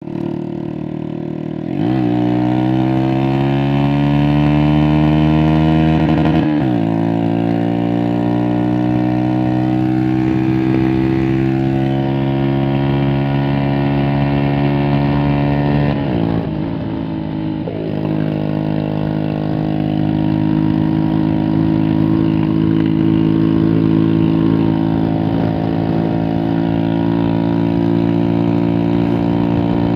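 Vehicle engine running through a new exhaust. Its pitch climbs, drops sharply about six seconds in, climbs again, and dips around sixteen seconds before settling into a steady drone.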